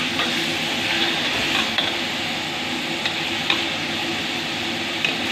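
Stir-frying in a steel wok: steady sizzling of vegetables and prawns as a metal ladle stirs them, with sharp clinks of the ladle against the wok now and then.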